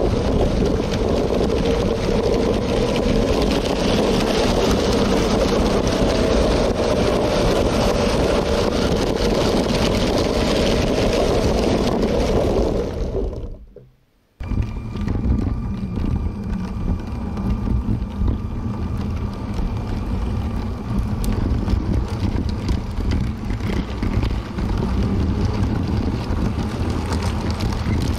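LEGO train running along plastic track, a steady rumbling rattle of wheels and small electric motor heard from very close. It fades out a little before halfway, goes almost silent for a moment, then cuts back in, now with a faint steady whine.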